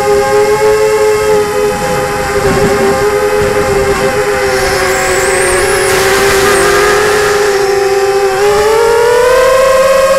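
A drone's propellers and electric motors whining loudly and steadily, heard close up from the drone's own camera. The pitch wavers slightly, then rises about eight seconds in as the motors speed up.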